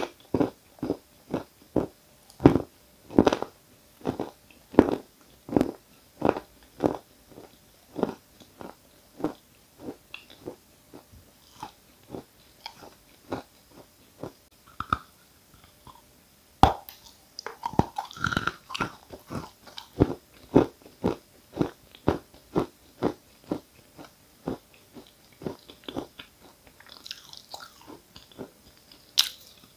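Close-miked chewing of a mouthful of 'Giant' variety edible chalk: a steady run of crunching chews, about two a second, that grow fainter as the chalk turns to mush. Near the end comes a sharper crunch, likely a fresh bite of chalk.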